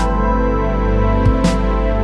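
Background music: sustained, gently shifting tones with a sharp percussive strike about every second and a half.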